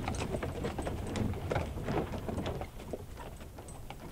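Horse's hooves clip-clopping as a horse-drawn wagon moves off, irregular clops fading away.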